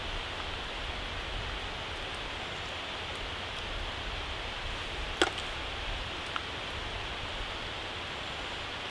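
Steady outdoor hiss, with one sharp click about five seconds in and a fainter click a second later.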